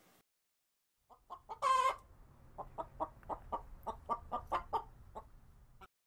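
Rooster clucking: one short squawk about a second and a half in, then a run of quick clucks, about four a second, lasting some three seconds.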